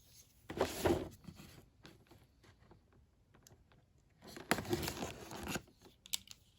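A cardboard toy box being opened by hand: two bursts of rustling and scraping, about half a second in and again around four and a half seconds, with a few light clicks in between.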